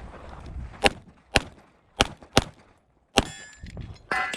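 Sig Sauer P320 XFive pistol with a ported barrel firing five shots at an uneven pace: two single shots about half a second apart, a quick pair, then one more. A brief metallic ringing follows the last shot.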